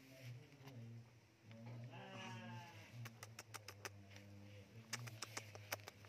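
A faint animal call about two seconds in, rising slightly and lasting about a second, followed by a quick run of sharp clicks.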